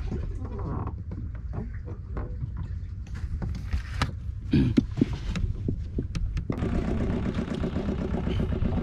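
Fishing boat's engine throbbing low and steady, with scattered knocks and clicks over it. About six and a half seconds in it turns louder, into a steady drone at several pitches.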